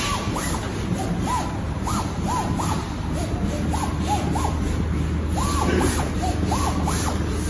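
Garment pattern plotter at work: its carriage motors give short whines that rise and fall in pitch, two or three a second, as the inkjet head makes quick moves along the rail. A steady low hum runs underneath.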